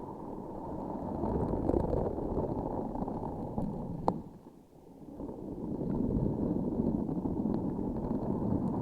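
Close-miked sticky, crackly squishing of a transparent sticky object being squeezed and worked in the hands, muffled in the highs. There is one sharp click about four seconds in, then a short lull before the squishing resumes.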